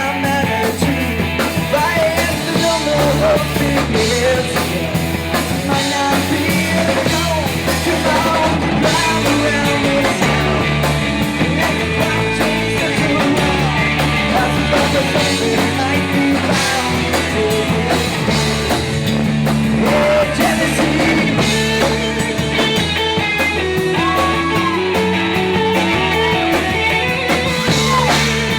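Rock band playing a song: electric guitar over bass and drum kit, loud and continuous.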